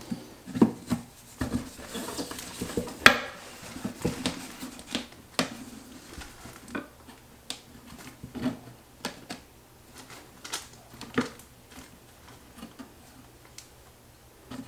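Irregular clinks and knocks of hard objects being handled and set down, with a sharper knock about three seconds in, growing sparser and fainter in the second half.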